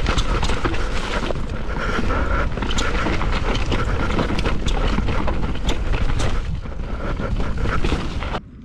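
Mountain bike descending a wet dirt trail: wind buffeting the camera microphone over tyres rolling through mud and loose twigs, with the bike's chain and parts rattling in many small clicks and knocks. The sound drops away abruptly near the end.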